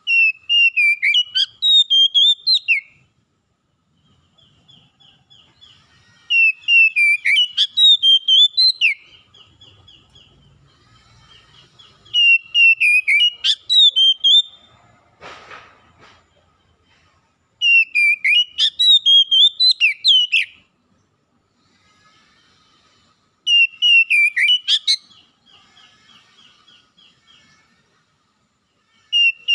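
Oriental magpie-robin singing: a loud, clear whistled phrase of about three seconds, repeated roughly every six seconds, with softer rapid trills in the gaps.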